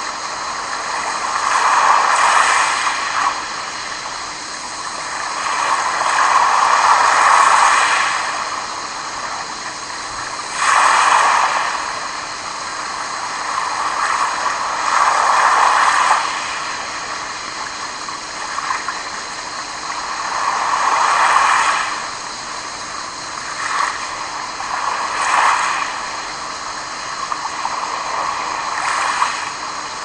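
Small sea waves lapping in and washing up a pebble beach around rocks, each wave swelling and falling away about every four to five seconds, a few breaking with a sharper splash.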